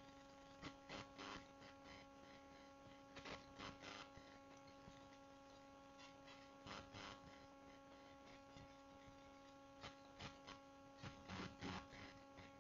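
Near silence: a steady electrical hum from the recording setup, with a few small groups of faint clicks.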